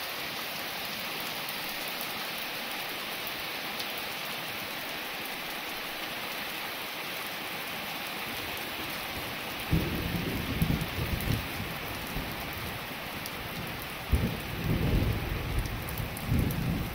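Steady rain falling, with thunder rumbling low in two spells from about ten seconds in.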